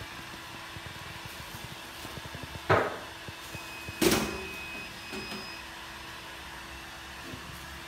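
Two sharp metal clacks about a second and a half apart from a small clamshell heat press being worked, over a faint steady hum.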